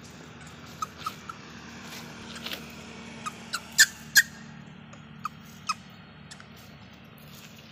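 Macaques squealing during a scuffle: a string of short, sharp, high squeals, the two loudest coming close together about four seconds in.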